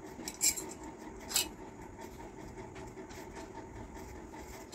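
Two sharp metallic clinks about a second apart: a metal wall-hook rail knocking against a ceramic-tiled wall as it is held in place and lined up.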